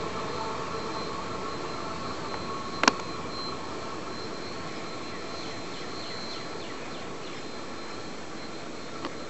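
Union Pacific 844's steam-hauled passenger train rolling away across a river bridge: a steady distant rumble that slowly fades. One sharp click about three seconds in.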